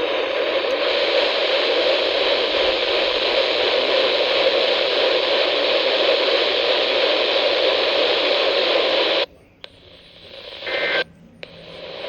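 Weather radio receiver hissing static on a channel with no signal, at a steady level. About nine seconds in the hiss cuts off abruptly, then comes back quieter in short swells near the end as the radio is switched between channels.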